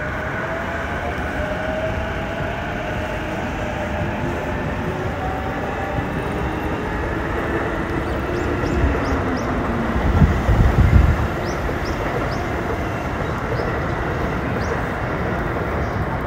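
JR Chuo Line rapid train, an orange-striped E233 series electric train, pulling away from Ochanomizu station: its motor whine rises in pitch as it gathers speed, over the steady rumble of its wheels on the track. A low rumble swells briefly about ten seconds in.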